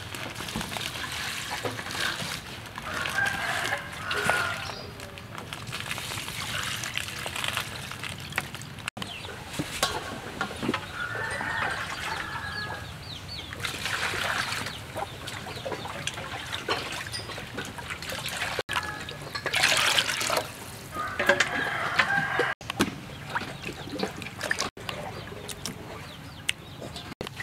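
A rooster crowing about three times, with chickens clucking. Between the crows, water poured from a dipper splashes into a steel bowl to rinse a piece of pork.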